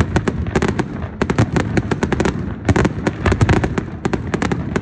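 Fireworks going off: a dense string of sharp cracks and bangs, many a second, broken by a couple of brief lulls.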